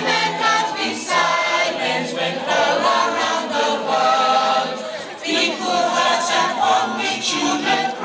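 A crowd of women singing a song together, many voices in unison, with a brief break about five seconds in.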